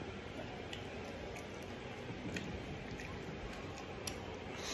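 Faint squishing and a few soft ticks as a lime is squeezed by hand over a plate of rice and the rice is then worked with the fingers, over a steady low hiss.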